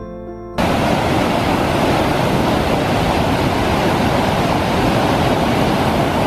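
Loud, steady rush of whitewater pouring through a narrow rock canyon. It cuts in abruptly about half a second in, replacing piano music.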